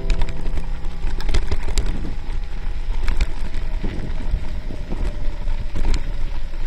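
Wind buffeting the microphone as a low, steady rumble, with irregular clicks and rattles from a bicycle riding over a rough path.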